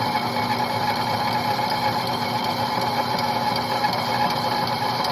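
Bulgarian C10T metal lathe running steadily, machining the welded-up bearing seat of an elevator sheave: a steady machine hum with several fixed tones.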